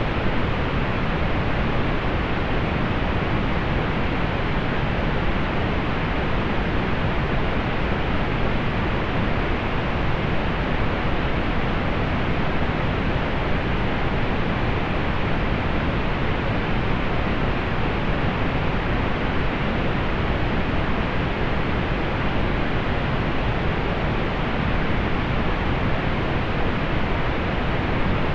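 Steady pink noise: an even, unchanging hiss with its highs rolled off, so it sounds soft and dull.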